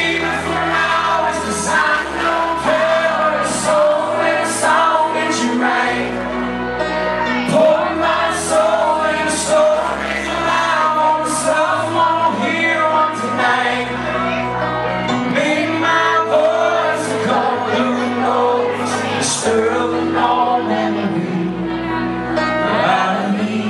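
Live country band playing the song: bass notes changing under the chords, drums with regular cymbal hits, and singing on top.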